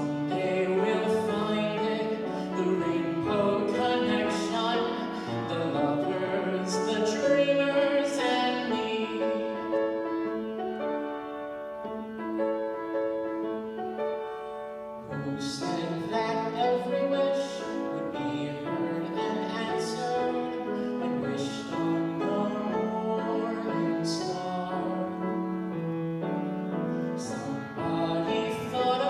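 A man singing a slow song into a microphone over piano accompaniment, holding long notes; the music drops quieter for a few seconds around the middle, then builds again.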